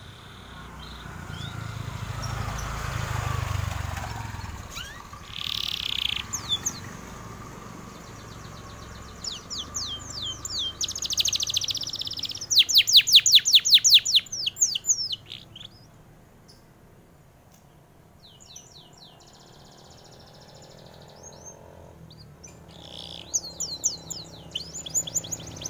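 Domestic canary singing in bursts of quick high chirps and trills, loudest as a fast trill of about eight notes a second around the middle, with another run of song near the end. A low rumble swells and fades in the first few seconds.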